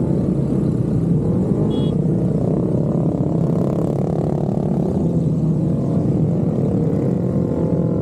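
Many motorcycle engines running together in a crowd of bikes, sport bikes and scooters mixed, with several riders revving up and down in slow, rising and falling sweeps.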